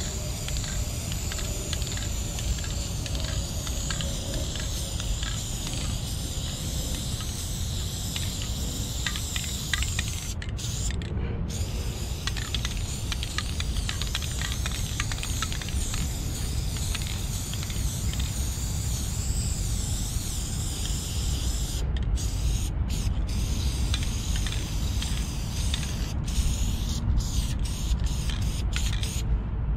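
Aerosol spray paint can hissing in long, steady passes, with a few short breaks where the nozzle is let go, mostly in the last third. A steady low rumble runs underneath.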